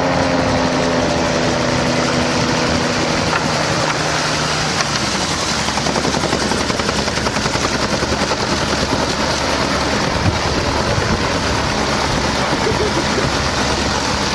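Gyroplane's engine and pusher propeller running hard, at first with a clear droning pitch that falls slightly as it passes low over the water. About five seconds in this gives way to a rougher, noisier steady sound with a fast flutter as the gyroplane runs along the water on its floats.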